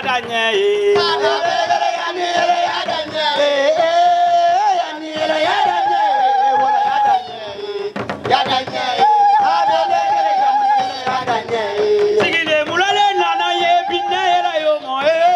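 Music with singing: long held, wavering sung notes over music accompanying a traditional masked dance, dipping briefly about halfway through.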